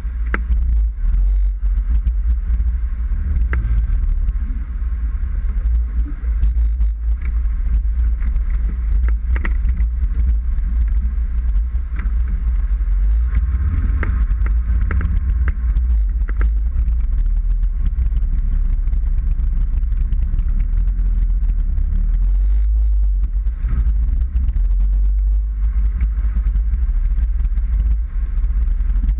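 Land Rover Defender driving off-road: a steady low engine rumble with scattered knocks and rattles throughout.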